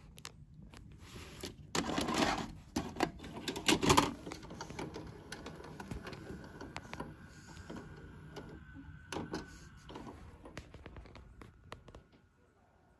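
Panasonic PV-V4022 VHS video recorder taking a tape and going into play: loud clunks about two and four seconds in, then a run of small mechanical clicks over a faint steady whine as the transport threads the tape.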